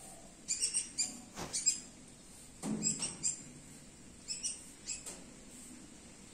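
Asian palm civet squeaking: short, high-pitched squeaks in about six quick clusters, with a dull bump about three seconds in.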